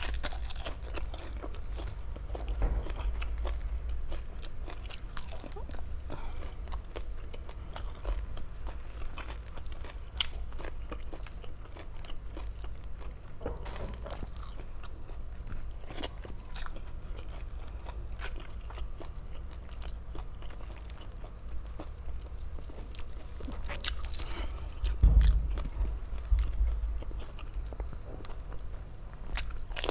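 Close-miked eating: biting and chewing with scattered crunches and crackles, from crispy deep-fried pork belly (lechon kawali). A louder low bump comes about five seconds before the end.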